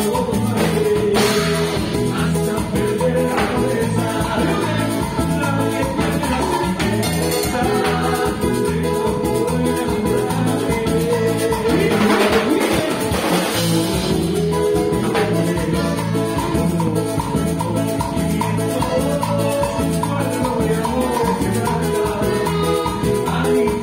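Live cumbia ranchera band playing loudly: electric guitar, timbales and drum kit over a steady, evenly repeating bass beat.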